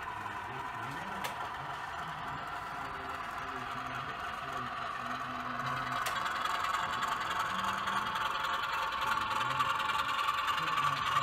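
Diesel engine sound from a sound-fitted model diesel locomotive, played through its small onboard speaker, running steadily and growing louder about halfway through, over a faint murmur of hall voices.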